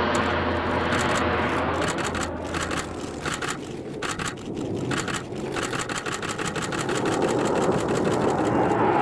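Propeller aircraft engine noise passing and fading, with a rapid crackling flutter through the first half.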